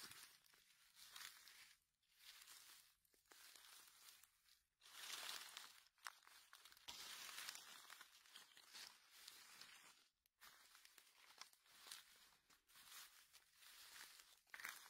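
Faint crunching and rustling of dry fallen leaves underfoot: footsteps through leaf litter, in uneven bursts.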